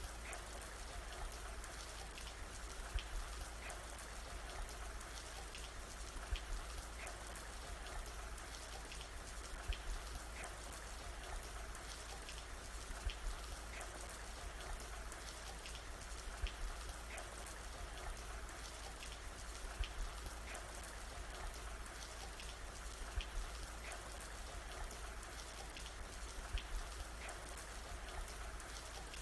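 Steady rain falling, with many small drops tapping on a surface and a louder drop about every three seconds.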